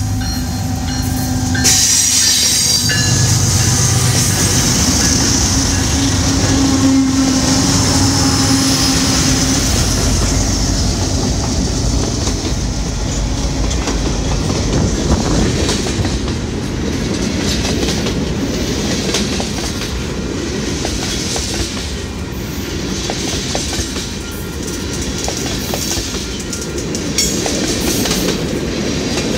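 Union Pacific diesel freight locomotives running past close by, followed by a long string of freight cars rolling by: a steady rumble with wheels clicking over the rail joints. A high wheel squeal rings over the rumble from about two seconds in until about ten seconds in.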